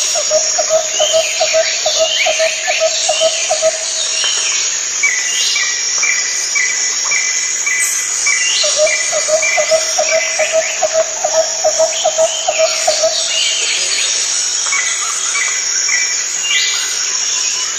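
Nature ambience of birdsong and insect chirping: a lower call repeats about five times a second in runs of a few seconds, starting in the opening seconds and again after about eight seconds. Many higher chirps and trills sound over a steady high insect buzz.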